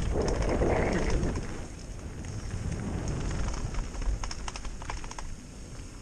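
Mountain bike descending a dirt and gravel trail: tyres crunching over the loose surface and the bike clattering over bumps, with wind rumbling on the microphone. A louder rush of tyre noise on gravel comes in the first second or so, and a run of sharp rattling clicks about four seconds in.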